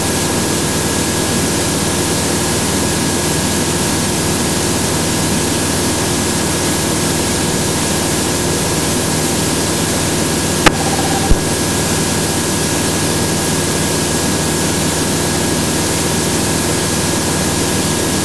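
Remos GX light-sport aircraft's Rotax 912 four-cylinder engine and propeller heard from inside the cabin at full throttle in a steady climb: an even, unchanging rush of noise with steady engine tones in it. About ten seconds in, two short clicks come half a second apart.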